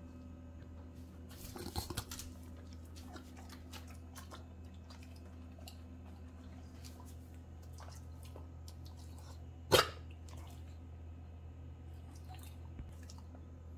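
English bulldog puppy licking and snuffling at a tile floor, with scattered small clicks and a brief louder flurry about two seconds in. About ten seconds in comes one short, loud sound from the dog.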